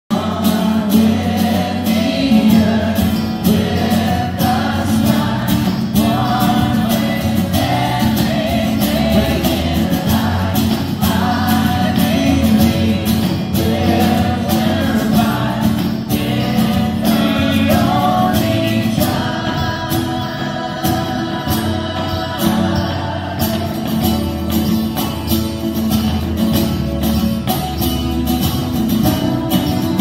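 Live band with acoustic guitars, bass guitar and hand percussion playing a song with a steady beat, while a group of young girls sings along in chorus.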